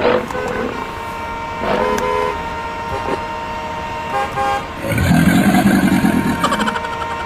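Vehicle horns honking: short beeps, then a louder, lower blast about five seconds in, over a steady tone.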